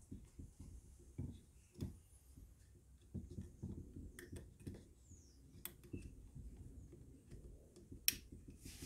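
Faint handling sounds of fingers working small metal parts and a spring into an air rifle's trigger housing: soft scrapes and knocks with scattered light clicks, and one sharper click near the end.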